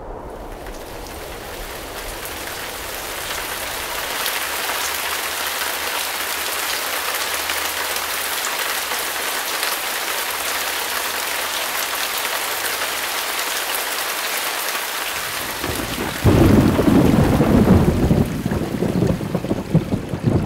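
Rain falling steadily, growing louder over the first few seconds, then a loud rumble of thunder breaks in about sixteen seconds in and lasts a few seconds.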